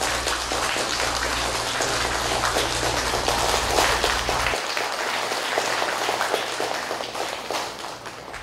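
Audience applauding with dense clapping that thins out near the end. Under it, a steady low hum cuts off about halfway through.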